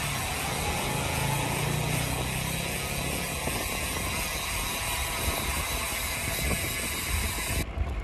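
Steady rush of wind on the microphone, with tyre noise, from a road bike riding along a paved road. It cuts off abruptly near the end.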